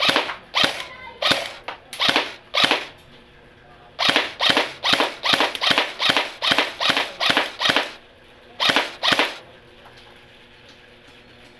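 Golden Eagle M16 airsoft electric gun (AEG) firing single shots on semi-auto, BBs through a chronograph: about twenty sharp shots. Six come spaced apart, then a quicker string of about a dozen at roughly three a second, then two more.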